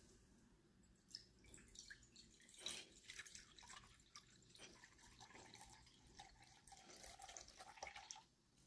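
Pale pandan water poured in a thin stream from a glass jar into a glass measuring jug, trickling and splashing faintly. It starts about a second in and stops shortly before the end.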